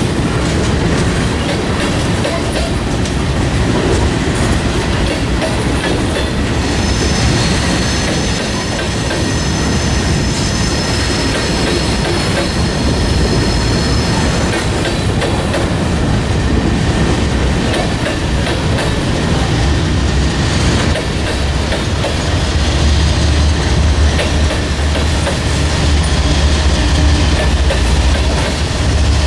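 Freight cars rolling past, a steady rumble of steel wheels on rail. High-pitched wheel squeal runs from about 7 to 14 seconds in. In the last several seconds a deep diesel rumble grows as a GE ES44DC distributed-power locomotive approaches.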